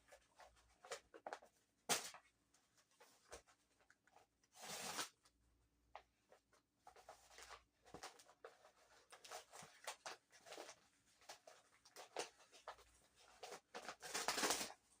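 Packaging being handled and opened by hand: scattered small clicks, taps and crinkles, with two longer rustling, scraping passages about five seconds in and near the end.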